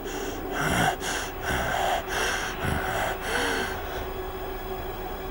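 A woman crying, with quick gasping breaths and short sobs about two a second, which die away about four seconds in.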